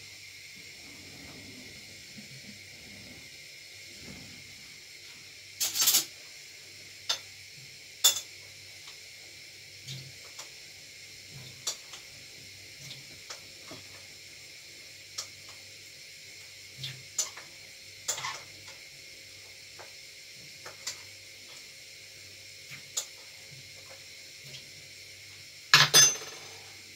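Kitchen utensils and dishes clinking and clattering now and then: a scatter of sharp knocks, the loudest about six seconds in and near the end, over a steady faint hiss.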